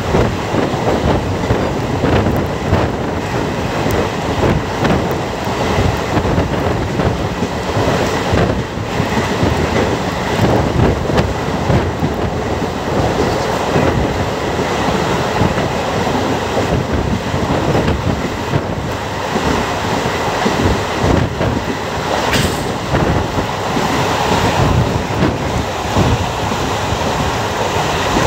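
Passenger express train running at speed, heard from a coach window: the wheels clatter steadily over the rails over a constant rush of running noise, with one sharper clank late on.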